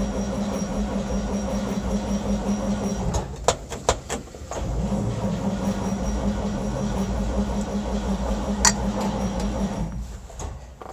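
1952 Chevrolet's starter cranking the cold inline-six engine with the choke pulled out, with a steady rhythmic churn. It stops for a moment with a few clicks about three seconds in, then cranks again without the engine catching.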